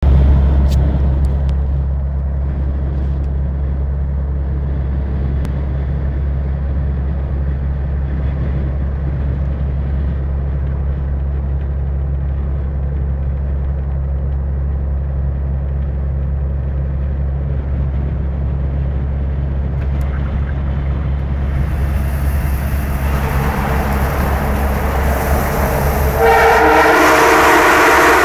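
A Volvo FH12 truck's diesel engine drones steadily while driving, with the road noise swelling in a tunnel. About two seconds before the end, the truck's aftermarket American-style train horn sounds a loud, sustained chord of several tones.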